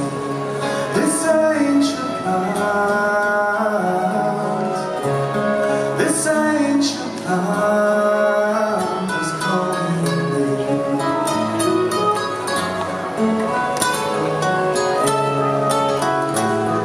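Live folk band playing: two fiddles bowing the melody over two acoustic guitars, picked and strummed.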